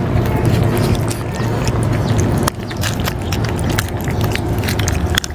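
Stray cats crunching dry cat food, a dense run of quick crisp clicks, over a steady low rumble.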